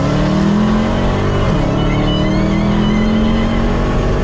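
Muscle car's engine pulling hard under acceleration, heard from inside the cabin: its pitch climbs, drops at a gear change about a second and a half in, then climbs again.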